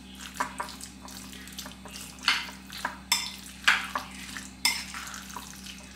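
Metal spoon scraping and clinking against a ceramic bowl as minced chicken filling is stirred and scooped. The clinks are irregular, with several sharper ones in the middle, over a steady low hum.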